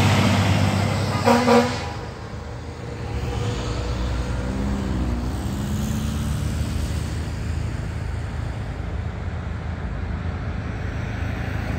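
Aerial ladder fire truck's diesel engine rumbling as it passes close by, with two short horn toots about a second in. The rumble dips, then settles into a steady low drone as the truck drives off down the street.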